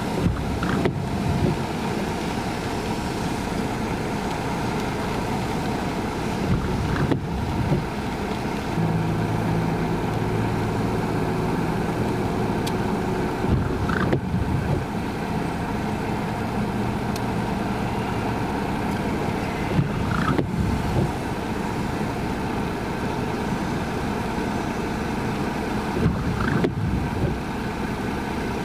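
Steady rush of rain heard from inside a car, with the windshield wiper sweeping across the wet glass about every six and a half seconds. A low hum runs for a few seconds in the middle.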